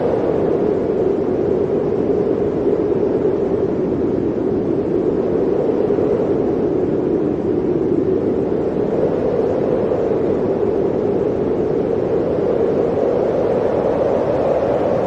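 Blizzard wind blowing steadily, a continuous low rushing with a slow, slight dip in pitch through the middle that rises again near the end.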